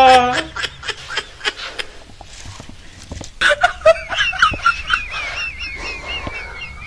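A chicken clucking, its calls turning into a long, wavering, high call from about three and a half seconds in that carries on to the end. Faint clicks and knocks come before it.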